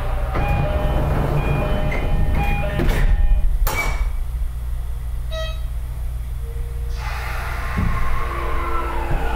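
Toei Type 5500 subway train at a station stop over a steady low equipment hum. The door chime sounds and the doors close with a thump about four seconds in. From about seven seconds the Mitsubishi full-SiC VVVF inverter and traction motors start up with a whine as the train pulls away.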